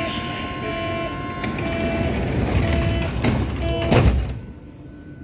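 Door-closing warning of a Berlin U-Bahn class H01 train: a short two-tone beep repeating about once a second, signalling that the doors are about to close. About four seconds in, the sliding doors shut with a thud and the sound turns quieter.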